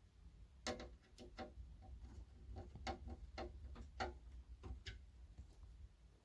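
Faint, irregular clicks and taps of small hard parts being handled during a speaker teardown, about a dozen of them over a few seconds, over a low steady hum.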